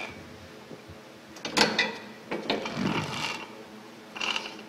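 The drill rig's 21-horsepower Honda engine running steadily in the background, while steel wire cable is handled and fed through the rig's sheave, giving a few short scraping, rubbing knocks about one and a half, two and a half, and four seconds in.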